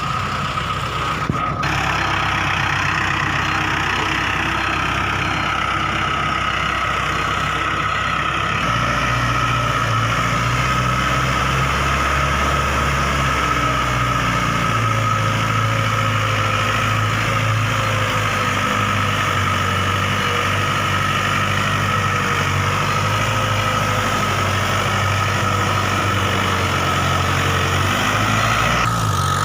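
Mahindra 555DI tractor's diesel engine running steadily, its low note shifting about eight seconds in.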